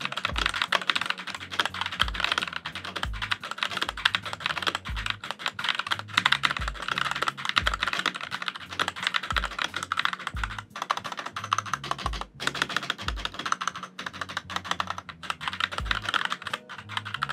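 Leaven K780 mechanical keyboard with yellow switches being typed on fast and continuously: a dense stream of key clicks, with a few short breaks.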